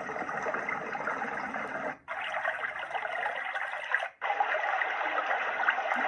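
DreamSky sleep sound machine playing its white-noise and nature-noise presets through its small speaker, switching to a new track about every two seconds with a brief break between each. Each track is a steady noise without a tune; the later ones sit higher and grainier than the first.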